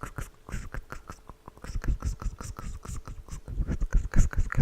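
Whispered 'sksk' ASMR mouth sounds very close to a microphone: a rapid run of hissing 's' and clicking 'k' sounds, several a second, with low thumps of breath hitting the mic. They grow louder in the second half.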